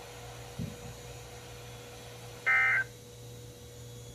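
A single short burst of electronic signalling tones, about a third of a second long, sent over a NOAA Weather Radio broadcast at the close of its weekly test, over a steady hum of the received carrier. A soft click comes just over half a second in.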